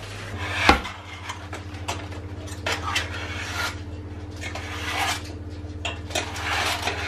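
Baking paper rustling and crinkling as it is unrolled and handled over a round metal baking pan, with a sharp knock about a second in and a few light clicks of the pan on the worktop.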